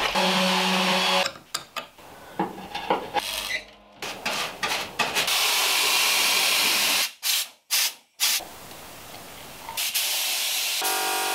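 Rapidly cut workshop sounds: rubbing and scraping, sharp clicks and knocks, and a few seconds of steady spraying hiss in the middle, each clip ending abruptly.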